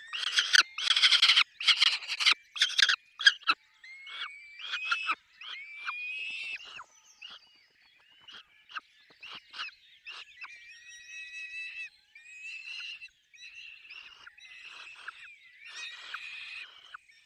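Peregrine falcons calling at the nest: a run of loud, harsh screams over the first three or so seconds, then quieter, thinner calls that rise in pitch, repeated on and off.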